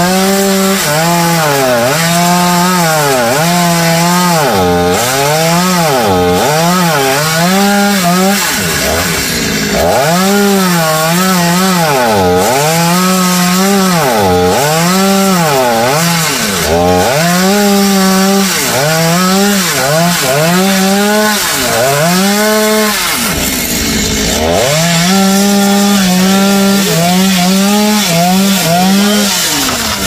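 Chainsaw cutting into the trunk of an African mahogany (xà cừ) tree, running at high revs and dipping in pitch every second or two as the chain bites into the wood. The engine drops away briefly about ten seconds in and again a little before the three-quarter mark, then picks back up.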